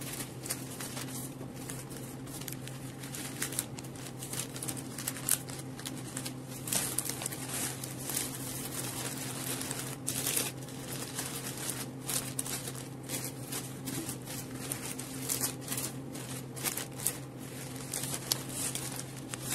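Sheets of wrapping paper rustling and crinkling in irregular bursts as they are folded and pressed around a bouquet, over a steady low hum.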